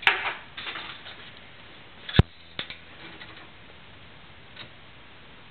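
Dishes being handled while unloading a dishwasher: a sharp clink at the start and a louder one about two seconds in, with softer rattles and ticks between. It goes quiet after about three seconds.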